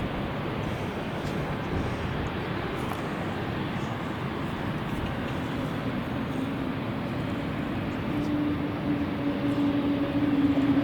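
Airliner engine noise with wind buffeting the microphone; a steady engine tone comes in about six seconds in and grows louder toward the end.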